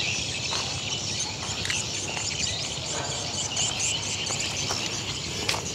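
Outdoor ambience: birds chirping over a steady background hiss, with a short click near the end.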